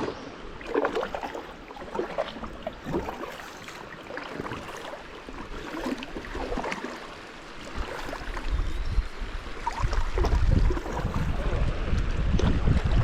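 Creek water rushing and splashing around a kayak running through fast water, with scattered short splashes; a heavier low rumble builds from about eight seconds in.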